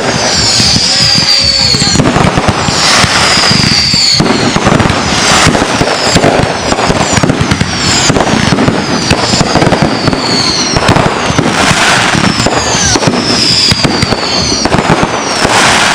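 Fireworks show in full barrage: a dense, continuous run of bursts and crackling, with many short high whistles falling in pitch, one after another.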